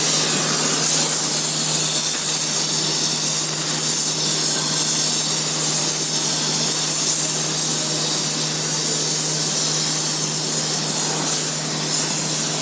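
Propane torch burning with a steady hiss, preheating thick aluminum square tubing before welding.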